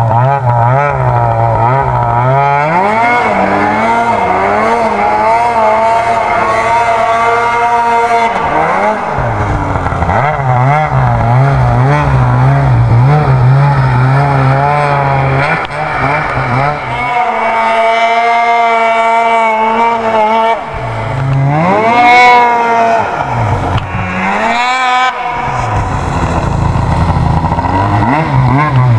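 Polaris two-stroke twin snowmobile engine run hard, revving up and falling off again and again as the sled turns and accelerates, its pitch climbing steeply several times, with short drops when the throttle is let off.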